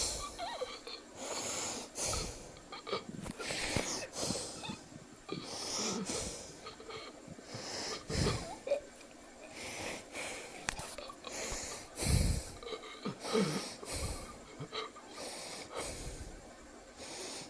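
A person breathing hard, with a noisy, rasping breath about every second or two.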